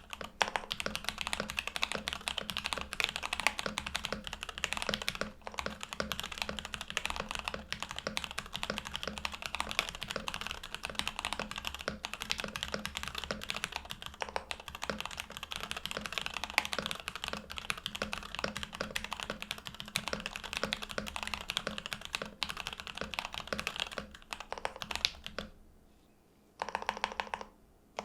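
Continuous fast typing on a Monokei Standard mechanical keyboard with Jwick Black linear switches on a polycarbonate plate, wearing PBT keycaps, with case and plate foam: a dense stream of key strikes and bottom-outs. The typing thins out and stops near the end.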